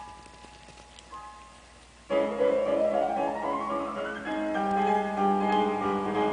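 Background piano music. It is faint for about two seconds, then comes in loud with a rising run of notes, followed by held chords.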